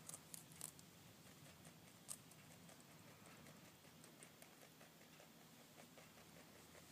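Pet rabbit chewing greens: faint, irregular crisp clicks and crunches, busiest in the first second, with a sharper click about two seconds in.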